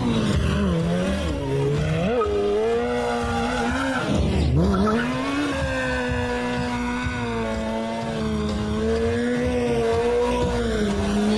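Stunt motorcycle engine held at high revs, its pitch wavering and dipping sharply once about four and a half seconds in, while the rear tyre spins on the tarmac and smokes in a burnout.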